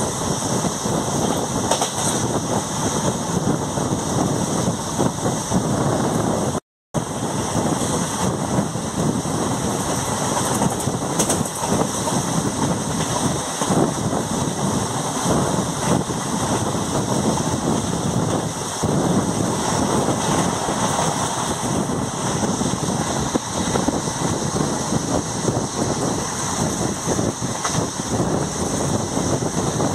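Express passenger train running at speed, heard from on board: a steady rumbling, rushing noise of wheels on the track. It cuts out completely for a split second about seven seconds in.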